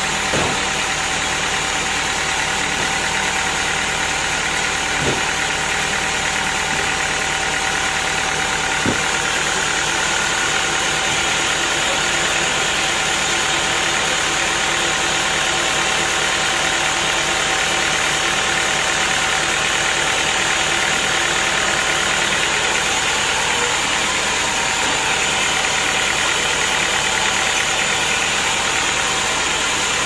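Band sawmill running steadily at idle, its blade turning without cutting. Three short knocks come about half a second, five and nine seconds in as the teak log is shifted onto the carriage.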